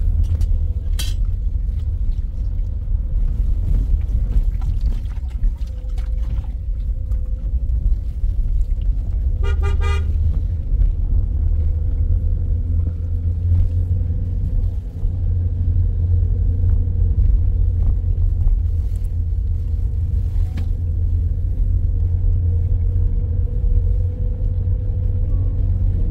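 Steady low engine and road rumble heard from inside a car's cabin as it drives along a dirt road, with a faint steady hum and a couple of sharp knocks. About ten seconds in there is a brief toot of the car horn.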